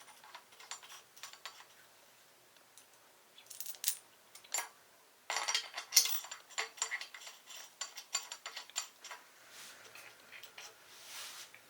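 Small metal parts being handled, with light metallic clicks and clinks: washers and bolts of a valve spring compressor tool being fitted onto the cam caps of a cylinder head. The clinks are sparse at first and come thicker from about halfway, with one sharper click just after that.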